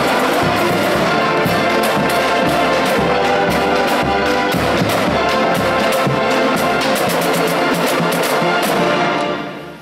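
Marching band playing: brass section carrying the tune over a drumline of bass drums and snare drums beating a steady rhythm. The music fades away just before the end.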